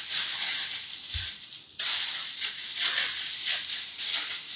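A clear plastic disposable piping bag crinkling and rustling as it is handled, a continuous crackle that swells and fades, with a dull bump about a second in.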